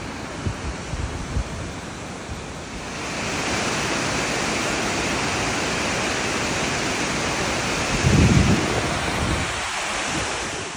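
Waterfall cascading over rock ledges: a steady rushing hiss of falling water that grows louder about three seconds in. A brief low rumble of wind on the microphone comes about eight seconds in.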